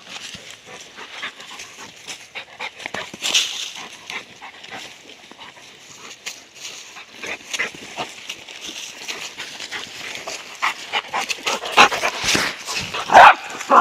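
Labrador retriever panting and whimpering amid many short crackles, with a loud whining cry near the end.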